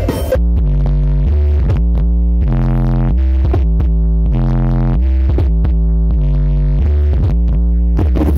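Loud electronic dance music with heavy sustained bass notes and synth chords, played over a big 'horeg' parade sound system.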